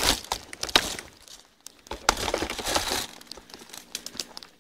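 Leaves and twigs rustling and cracking close to the microphone as a body-worn camera pushes through dense brush. It comes in crackly bursts with scattered sharp snaps, heaviest at the start and again two to three seconds in, then dies away.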